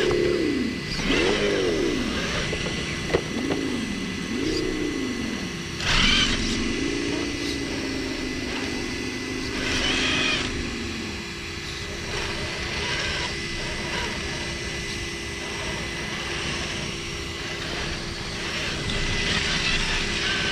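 A radio-controlled car's motor whining, its pitch rising and falling with several short throttle bursts, then holding steadier at part throttle. One sharp click about three seconds in, and a faint steady high tone underneath.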